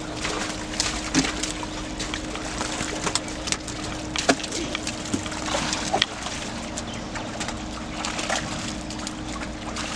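Live fish flapping and splashing in shallow water in a net as hands pick through the catch: scattered wet slaps and splashes, with a steady low hum underneath.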